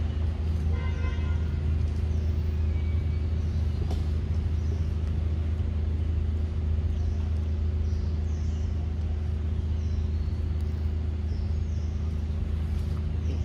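A steady low mechanical hum, with a few faint clicks over it.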